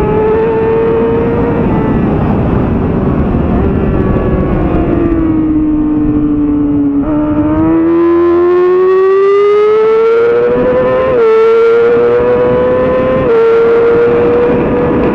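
2007 Yamaha R6's inline-four engine at racing speed, heard on board. The engine note sinks for several seconds, then climbs steadily from about halfway, with two brief breaks in the climb near the end as it shifts gears.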